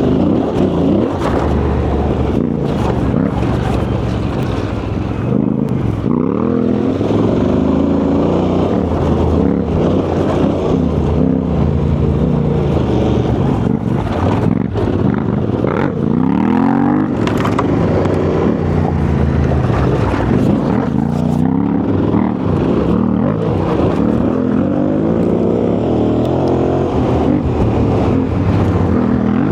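Yamaha Ténéré 700's parallel-twin engine running under way, its revs rising and falling again and again with throttle changes.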